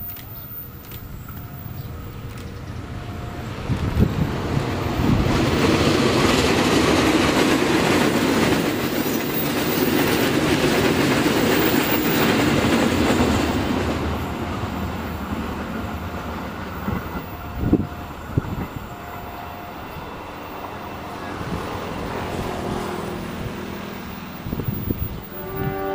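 A train passing on the line: a rumble and wheel noise that build up about four seconds in, stay loudest for several seconds, then fade away, with a few sharp clacks from the wheels.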